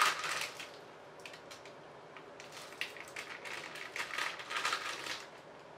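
Irregular rustling and clicking handling noise in several short bursts.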